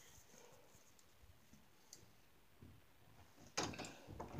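Near silence in a small room with a few faint clicks, then a louder rustling, noisy stretch near the end ending in a sharp knock.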